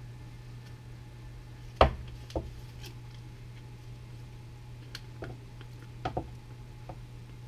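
Handling noise from a wooden-framed snowshoe with an aluminum crampon binding being turned over on a workbench: one sharp knock about two seconds in, a smaller one just after, then a few light clicks and taps later on, over a steady low hum.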